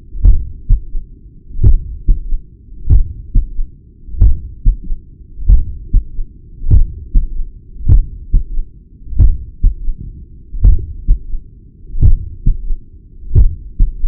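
Heartbeat heard through a Stemoscope digital stethoscope at the cardiac apex. It is slow and regular, about 48 beats a minute, each beat a strong thump followed by a softer second one. Between the beats is a continuous low hiss, in a recording made to capture a third heart sound (S3) and a heart murmur.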